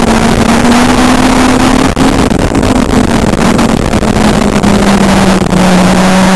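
Street stock race car's engine running hard during a dirt-track race, heard loud from inside the cockpit over a dense wash of noise. The engine note climbs slightly, drops for a moment about two seconds in, then eases lower, with another brief drop near the end.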